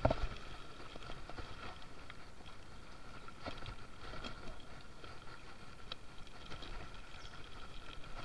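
Mountain bike rolling down a dirt forest trail: steady tyre noise on dirt and leaves with scattered small clicks and rattles from the bike.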